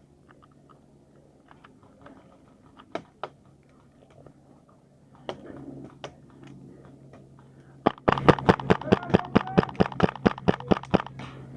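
Scattered crunching steps through dry undergrowth. About eight seconds in comes a rapid, even string of sharp cracks, about seven a second, from an airsoft gun firing on full auto.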